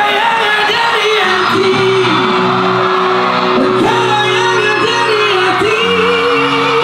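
Live pop band playing with a lead vocalist singing into a microphone, the voice holding long sustained notes over the band, loud through the concert sound system.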